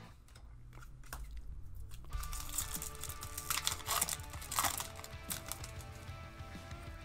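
Booster pack's foil wrapper being torn open and crumpled, a dense rustle loudest between about two and five seconds in, over quiet background music.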